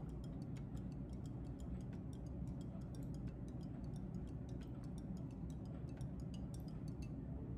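Faint, quick, irregularly spaced small clicks over a low steady hum.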